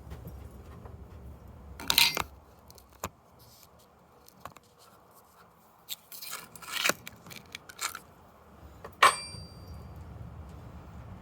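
Metal tools or parts being handled: a few sharp clinks and clattering rattles, the loudest about nine seconds in with a short metallic ring.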